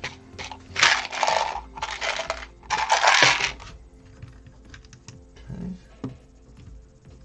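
Loose plastic building bricks rattling and clattering as a hand rummages through them, in three bursts within the first few seconds, followed by a few light clicks of single bricks.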